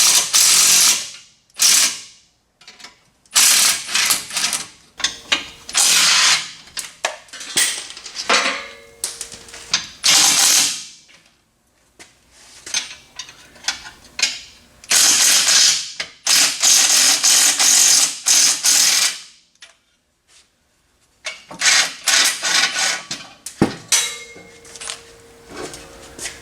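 Hand ratchet wrench clicking in repeated short bursts as exhaust collector bolts are worked loose, with one sharp metal knock near the end.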